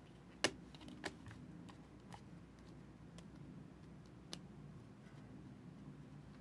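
Football trading cards being handled and flipped through by hand: a few faint, scattered clicks and taps of card edges, the sharpest about half a second in, over a low steady room hum.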